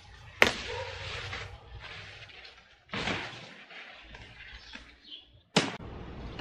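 A rhubarb stalk pulled from the crown with a sharp snap about half a second in, followed by its large leaves rustling. Near the end, a single sharp chop as a knife cuts the leaf off the stalk.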